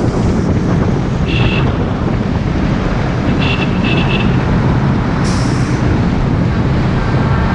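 A bus riding through road traffic: steady engine rumble and road noise, with short high beeps at about a second and a half and again around three and a half to four seconds in, and a brief hiss a little after five seconds.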